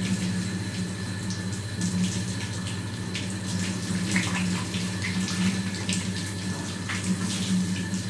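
Water running and splashing in a tiled shower room as soap is rinsed off a wet cat, with scattered drips and splashes and a steady low hum underneath.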